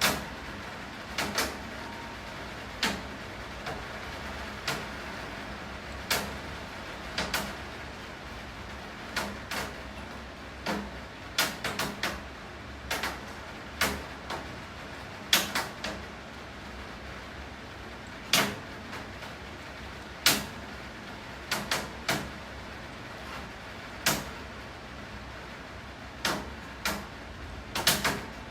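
Steady rain hiss with irregular sharp taps of heavy drops striking a hard surface, roughly one a second, some coming in quick pairs or triplets.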